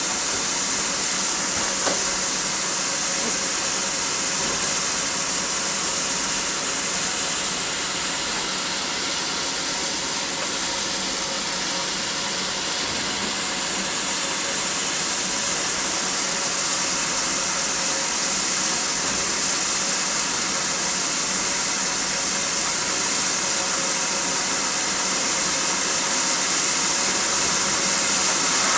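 Steady, unbroken hiss of steam escaping from the standing SNCF 241P steam locomotive 241P17.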